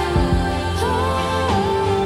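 Background music: a melodic line over a steady bass.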